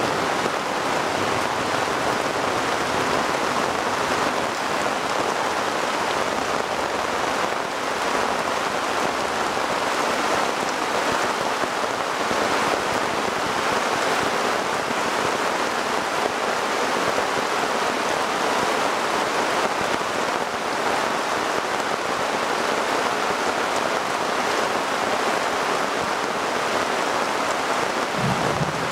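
Heavy rain falling steadily, an even, unbroken hiss of many drops.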